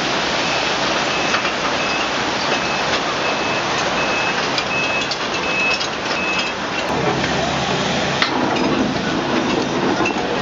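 Heavy construction machinery running steadily, with a reversing alarm beeping about twice a second for the first six seconds or so.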